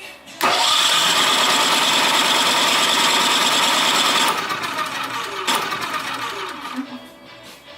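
Champion 3500-watt dual-fuel generator's single-cylinder engine being cranked by its electric starter for about four seconds without staying running. A shorter burst follows and winds down, falling in pitch: a failed start attempt, one of several before it caught.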